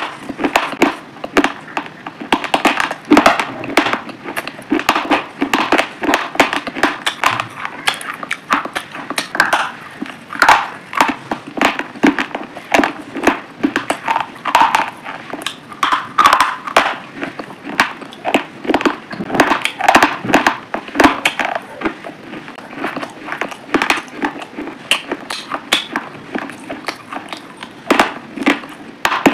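Chewing pomegranate arils: a dense, continuous run of crunches and clicks, several a second.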